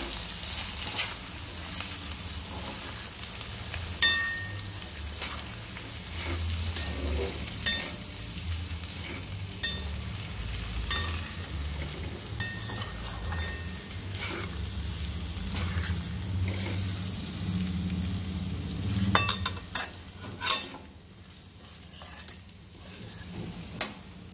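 Soaked val dal and dry spices sizzling in oil in a steel kadai while being stirred with a metal spoon, which scrapes and clinks against the pan now and then. The sizzling drops quieter near the end, after a couple of sharp clinks.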